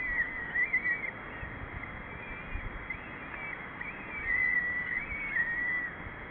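Peregrine falcons calling at the nest during a feed: a string of thin, wavering calls that rise and fall, over a steady background hiss.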